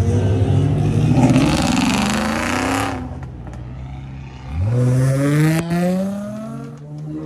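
A GMC Sierra pickup's engine revs up hard in rising pitch as it pulls away, cutting off abruptly about three seconds in. About four and a half seconds in, a second car's engine launches, sweeping sharply up in pitch as it accelerates away, then fades.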